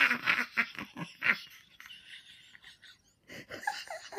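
A woman laughing hard, trailing off after about a second, then a few short high-pitched laughing sounds near the end.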